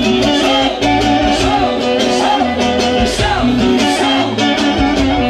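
Loud band music: a guitar melody over a steady drum beat.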